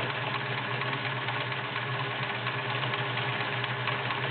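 All-metal Kenmore 1720 sewing machine running steadily at speed, sewing a stretch zigzag stitch.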